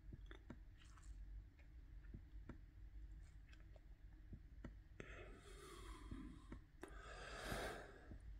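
Faint, irregular clicks from the laptop as the document is scrolled, over a low room hum. Two short rushes of noise come in the second half, the later one the loudest.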